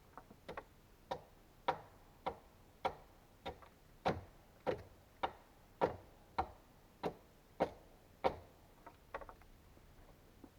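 A steady series of about a dozen hand-tool blows on wood, about one every half second and loudest in the middle, each with a short ring. A few lighter, quicker taps follow near the end.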